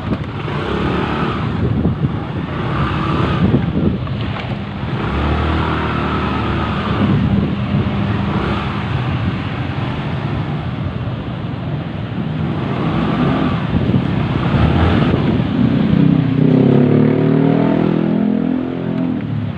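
Small scooter engine running, its revs rising and falling, freshly top-overhauled with the earlier noise gone.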